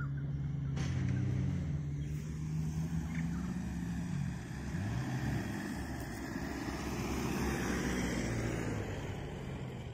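Four-wheel-drive vehicle's engine running on soft sand, its note rising and falling a few times.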